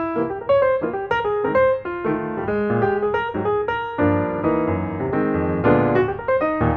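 Background music: a piano or electric piano playing a brisk melody of quick notes.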